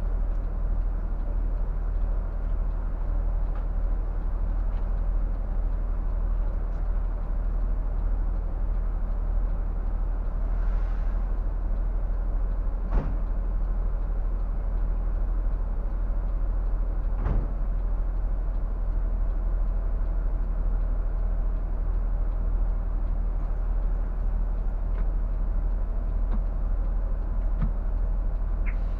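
Scania K124 360 bus's straight-six diesel engine idling steadily, heard from the driver's cab while the bus stands still. Two short knocks come about halfway through, a few seconds apart.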